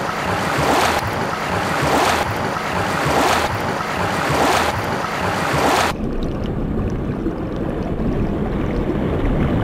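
Rushing whooshes swelling and fading about once a second. From about six seconds in they give way to a duller, lower rumbling noise.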